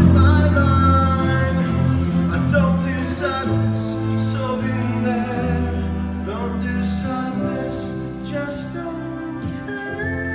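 Live small band with electric guitar and strings playing the closing bars of a rock-musical song, held chords under a male voice singing a few lines, growing gradually softer.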